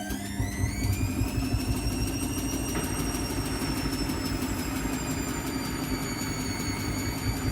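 Washing machine on its spin cycle: the motor's whine rises in pitch and levels off about two seconds in over a heavy rumble of the spinning drum, with a rapid, even ticking throughout.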